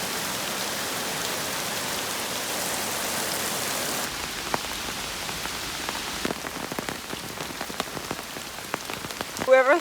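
Heavy rain falling in a steady hiss. From about halfway through, single drops tick distinctly over the rush.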